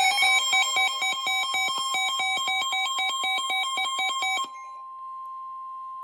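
Electronic weather-alert alarm switching rapidly between pitches about five times a second over a steady single tone. The warbling stops about four and a half seconds in, leaving the steady tone alone, which cuts off at the end. This is the NOAA Weather Radio warning alarm tone that heralds an urgent warning, here a tornado warning.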